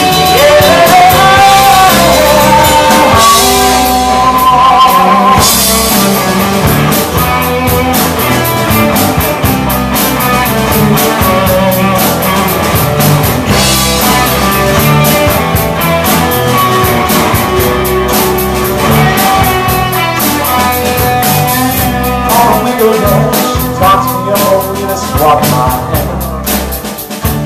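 Live rock band playing loud through a small camcorder's microphone: electric guitars, electric bass and a drum kit keeping a steady beat, with gliding, bending melody lines near the start.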